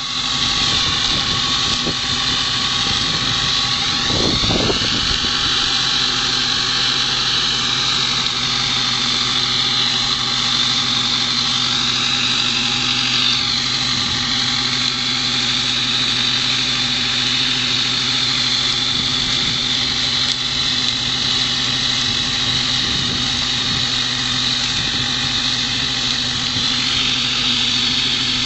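Ursus 914 tractor's four-cylinder diesel engine running steadily as it pulls a slurry tanker spreading liquid manure, with a steady hiss of slurry spraying from the tanker's rear.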